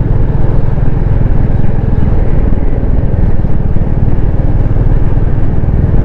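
Motorcycle running at a steady road speed, its engine and road rumble loud and unbroken.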